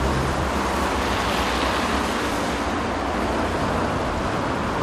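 Steady rushing noise of road traffic and wind on the microphone, with a low vehicle engine hum that fades out about half a second in.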